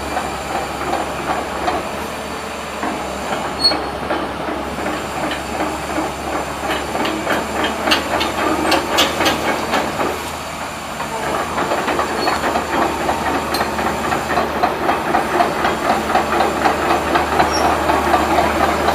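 Komatsu PC200-8MO hydraulic excavator running and working, its diesel engine droning under a hiss and a fast metallic clatter that eases for a moment about ten seconds in, then builds again.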